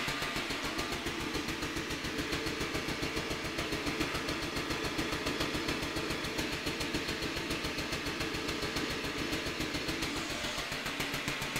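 Vacuum tube Tesla coil running in staccato mode, its sparks snapping in a rapid, even train of cracks.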